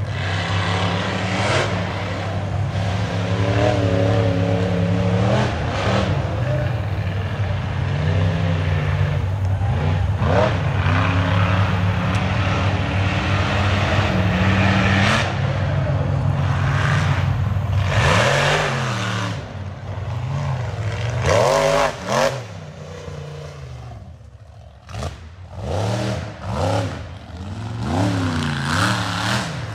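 Rock racing buggy engine running hard under load, its pitch holding and stepping up and down through the first half. In the second half the throttle is blipped again and again, the revs rising and falling in quick swells, with a short lull about two-thirds of the way in.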